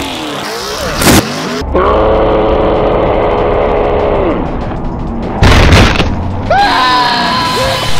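Off-road mud truck crashing: two heavy crash booms about four seconds apart. Between them an engine holds a steady high-revving note that falls away just before the second crash.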